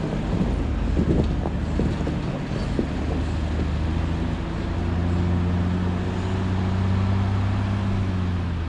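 Mercedes-Benz Unimog's diesel engine labouring under load as the truck climbs a steep dirt hill: a steady low drone that grows louder through the second half, with a few sharp knocks in the first three seconds.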